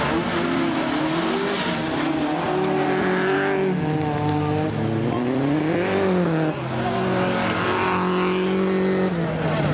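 Folkrace cars' engines revving hard around a dirt track, the pitch climbing and dropping repeatedly as the drivers accelerate, change gear and lift off.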